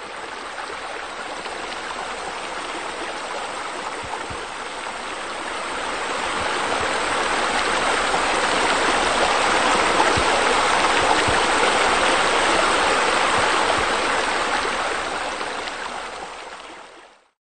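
Steady running water, like a stream or waterfall, that grows louder about a third of the way in and fades out near the end.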